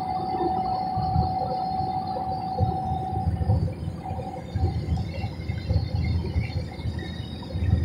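Airliner cabin noise during the climb: the steady rush of jet engines and airflow, with a low rumble that swells and dips. A steady high hum runs under it and stops about three seconds in.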